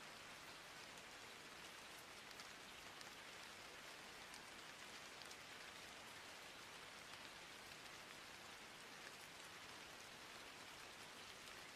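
Near silence: a faint, steady hiss flecked with tiny crackles, recording noise with no speech or music.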